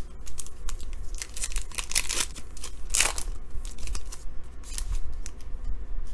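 Foil wrapper of a trading-card pack crinkling in the hands and being torn open, a run of sharp crackles that is thickest between one and three seconds in.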